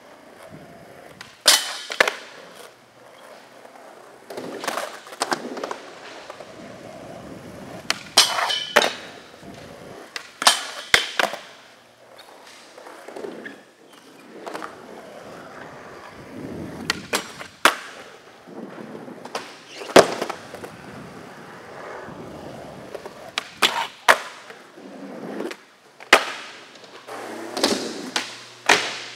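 Skateboard wheels rolling over a smooth floor and wooden ramps, broken every few seconds by sharp clacks of the board popping, sliding on ramp edges and landing.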